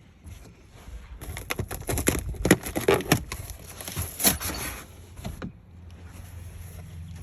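Boxed parts and cardboard packaging being handled and unpacked: a run of irregular knocks, clacks and rustling, from about a second in until about five and a half seconds in.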